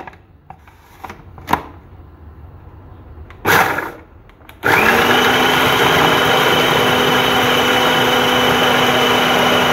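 Food processor grinding peeled garlic and ginger with coriander seeds and oil into a paste. A few clicks and a knock come as the lid and pusher are set in place. A little before halfway through, the motor starts and then runs steadily with an even whine.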